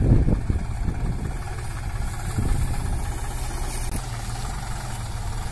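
Small farm tractor's diesel engine running steadily while the tractor drives slowly across the field.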